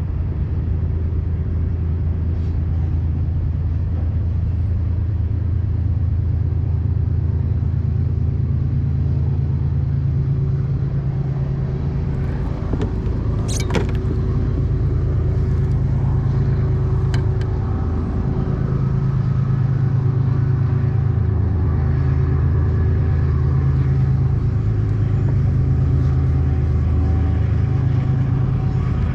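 A motor vehicle's engine running steadily with a low rumble, its pitch shifting a little after about 18 seconds. There is a sharp click about 13 seconds in.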